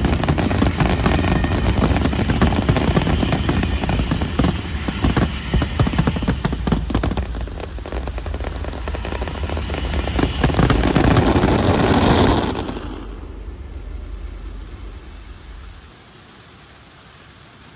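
Fireworks display: a dense run of bangs and crackling that swells about ten seconds in, then stops suddenly, leaving a low background.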